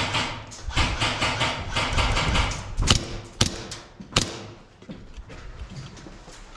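Heavy, fast breathing close to the microphone in a run of hard breaths, followed by three sharp clicks or knocks about three, three and a half and four seconds in.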